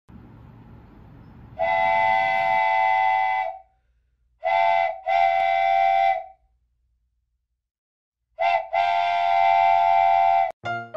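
Train whistle with several tones sounding together, blown in five blasts: one long, then a short and a longer one, then a short and a long one. A low rumble runs under the first second and a half, before the first blast.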